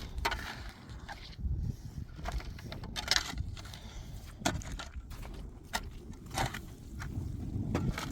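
Irregular crunching and scraping, a sharp crunch every second or so over a low rumble.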